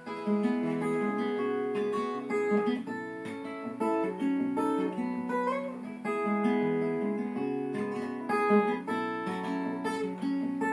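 Acoustic guitar playing alone, an instrumental break of picked chords with no voice.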